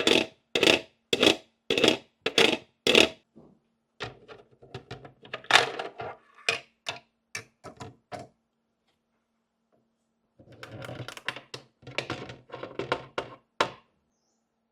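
Small hard plastic pieces clicking and tapping as they are handled and set down: five sharp taps about half a second apart, then scattered lighter clicks, a short pause, and a further run of clicks and rustling.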